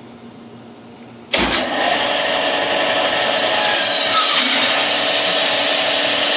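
Band saw switched on about a second in, then running loud and steady.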